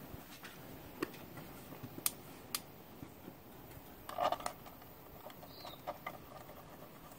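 Sparse light clicks and taps of a small bolt being started by hand into the plastic air cleaner housing on a Suzuki Alto carburettor. A short cluster of knocks and rubbing comes about four seconds in.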